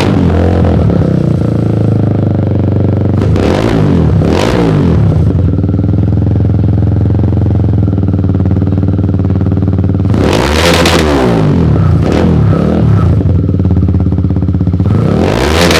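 Motorcycle engine breathing through an SC Project canister on a 51mm elbow pipe, idling steadily and revved in quick throttle blips a few times, about four seconds in, around eleven seconds and again at the end, the pitch rising and falling back to idle each time.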